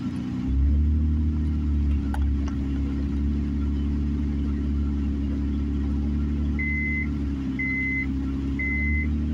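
Car engine and road noise heard inside the cabin while driving, louder from about half a second in as the car speeds up. Near the end, a short high beep repeats about once a second.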